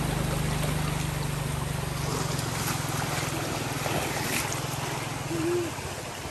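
Fast-flowing stream water rushing over a fishing net, with splashes as someone wades and steps through the shallows around three to four seconds in. A steady low hum runs underneath and stops near the end.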